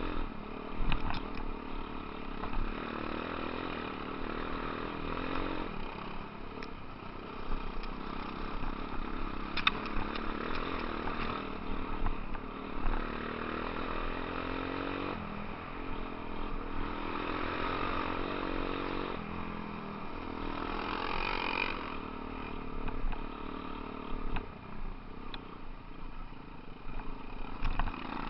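Off-road motorcycle engine running as it rides a rough dirt trail, its pitch rising and falling with the throttle, with a few sharp knocks.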